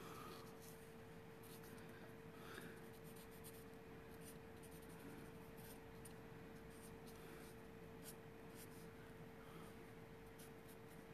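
Faint strokes of Copic alcohol markers coloring on paper, irregular and soft, over a steady hum.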